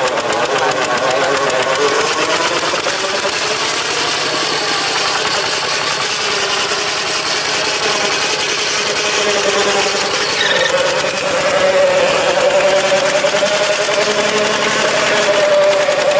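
Small Thai-built tractor's single-cylinder diesel engine running steadily under load, driving a PTO rotary tiller through soil. A steady higher tone joins about two-thirds of the way through.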